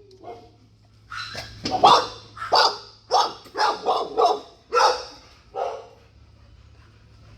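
A dog barking about ten times in quick succession. The barks start about a second in and stop near the end.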